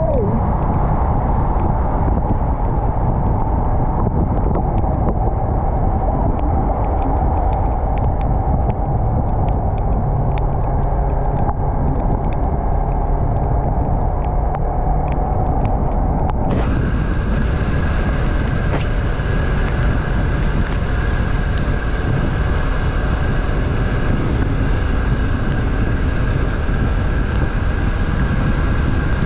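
Yamaha MT-03 motorcycle's parallel-twin engine running steadily while riding, with wind rush on the microphone.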